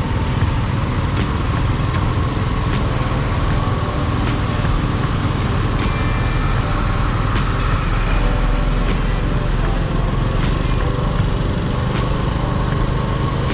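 City street traffic: small motor vehicle engines, motorbikes among them, running steadily under a constant low rumble.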